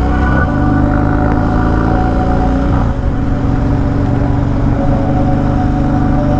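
Harley-Davidson Dyna's V-twin engine running while the bike is ridden, heard through a Bassani Road Rage 3 exhaust, with long steady held tones laid over it.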